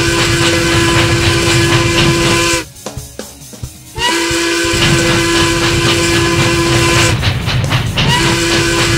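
Steam locomotive whistle blowing long blasts over the steady rumble of the running train. The first blast stops about two and a half seconds in, a second sounds for about three seconds, and a third starts near the end. Each blast slides up slightly in pitch as it begins.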